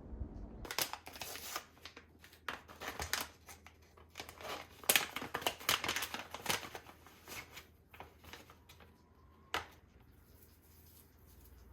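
Paper rustling and crinkling in irregular bursts, with a few sharp clicks, thinning out near the end.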